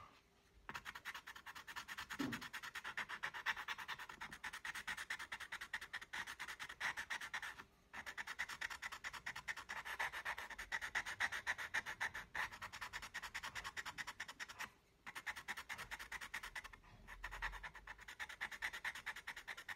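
Graphite pencil scratching on paper in rapid, short back-and-forth strokes while shading in a dark background, pausing briefly a few times.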